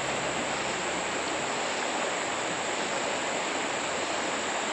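Creek water rushing steadily past.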